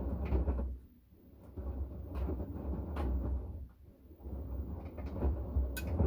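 LG direct-drive washing machine drum turning in a wash cycle: a low rumble in spells of about two seconds with short pauses between, three times.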